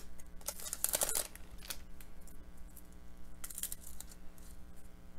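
Foil trading-card pack wrapper crinkling and tearing as it is pulled open and the cards are slid out and handled, in a few short rustling bursts over a faint steady hum.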